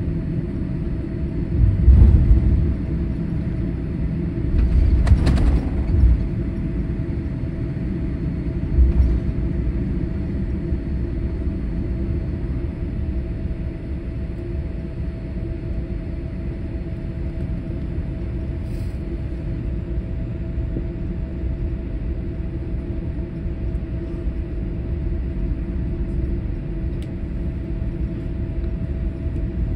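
Cabin noise of a Boeing 787-8 airliner taxiing to its gate after landing: a steady low rumble with a faint steady hum, and a few louder low thumps about two, five and nine seconds in.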